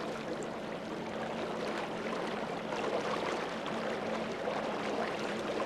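Steady noise of water and wind around a small fishing boat under way, with the faint even hum of its motor underneath.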